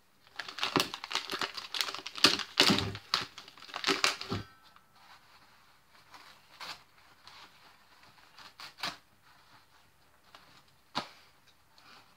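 White paper bag crinkling and rustling as it is unfolded and opened by hand: a dense run of crackles for the first four seconds or so, then scattered rustles and one sharp crackle about eleven seconds in.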